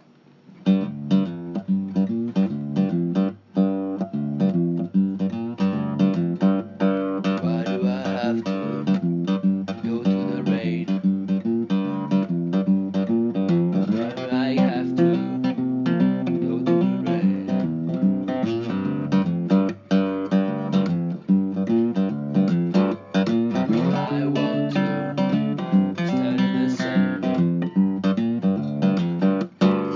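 Acoustic guitar music with quick plucked and strummed notes, starting about half a second in after a moment of quiet.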